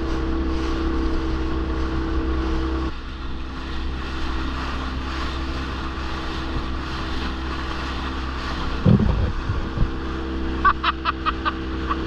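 Small boat motor running steadily with an even hum. There is a brief low thump about nine seconds in, and a quick run of short high chirps near the end.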